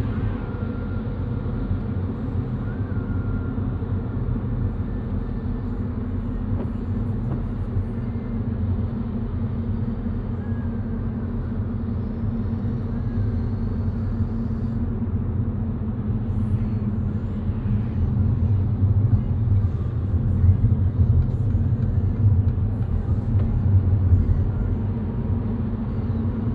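Car driving, heard as a steady low rumble of road and engine noise, which swells louder for several seconds in the later part.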